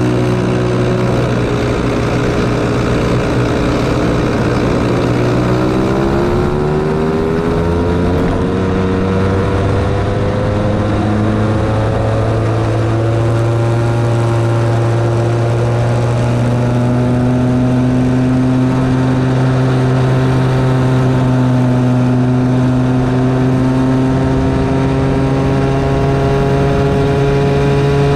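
Small Bambino go-kart engine running under throttle, heard close from the moving kart. Its pitch climbs about five seconds in, then holds fairly steady with a slow rise.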